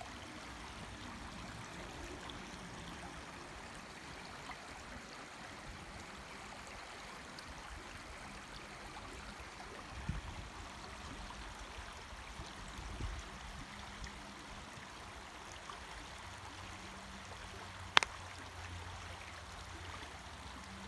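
Shallow creek flowing steadily over a stony bed, a continuous rush of water. There are two low thumps around the middle and one sharp click near the end.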